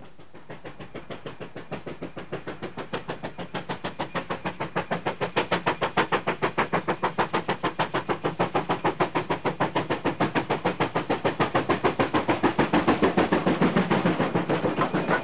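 Steam locomotive MA2 working a train with rapid, even exhaust beats, about five a second, building up steam for a long climb. The beats grow steadily louder as it approaches.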